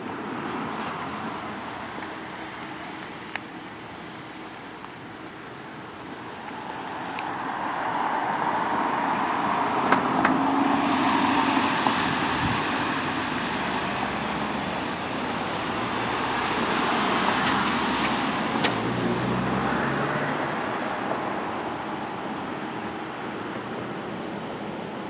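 A police patrol car, a Dodge Charger, driving past on a paved road. Its tyre and engine noise swells to a peak around ten to twelve seconds in. A second swell of passing-vehicle noise comes around eighteen seconds in.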